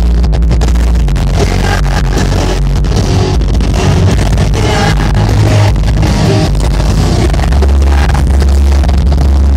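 Live rock band playing loud through a concert PA, heard from inside the crowd, with heavy, booming bass and guitar.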